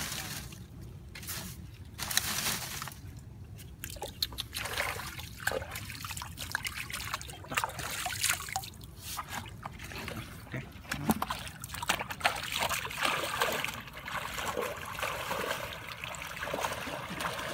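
Live catfish squirming in a plastic bucket: irregular wet slapping and sloshing. Later comes splashing from wading through shallow water.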